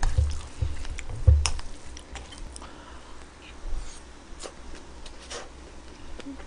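Close-miked chewing of a mouthful of pork belly and bean sprout rice, with a low thump about a second in and a few sharp clicks scattered through.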